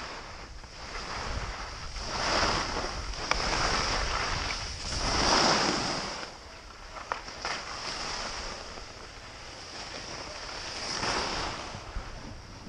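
Edges scraping and hissing over packed snow during a descent down a ski slope, swelling loudly in three long surges as the rider turns, with wind rushing over the microphone.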